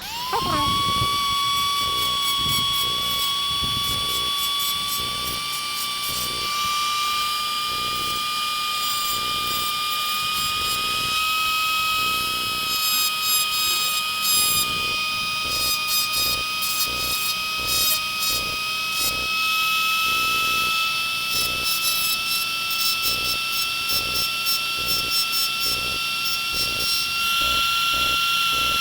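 Rotary engraver spinning up with a quick rise in pitch, then running at a steady high whine that creeps slowly higher, as its bit grinds a thin layer off the fob's circuit board with an uneven scratchy grinding underneath.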